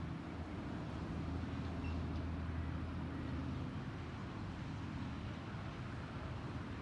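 Distant diesel locomotive engine running with a steady low drone as a light-engine pair approaches, swelling slightly a couple of seconds in.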